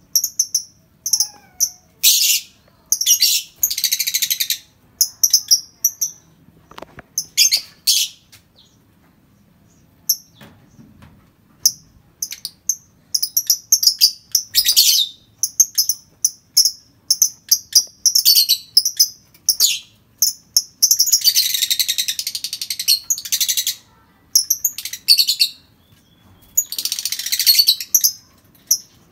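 Pet lovebird chirping: short high-pitched chirps in quick runs, broken up three times by longer rasping chatters of a second or two. There is a brief lull about a third of the way in.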